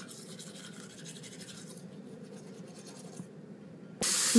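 Toothbrush scrubbing teeth with charcoal toothpaste: a faint, rapid scratching that stops a little after three seconds in. Near the end a loud, steady hiss cuts in suddenly.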